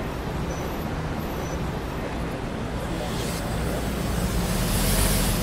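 Rome Metro Line B train running, a steady rumble and hum, with a brief swell of hiss near the end.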